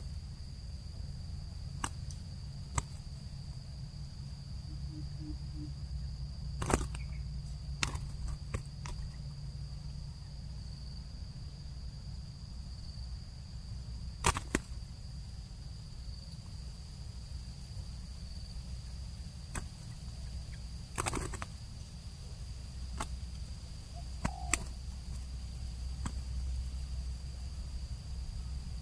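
Outdoor field ambience: a steady high-pitched insect drone over a low rumble, with scattered sharp clicks now and then.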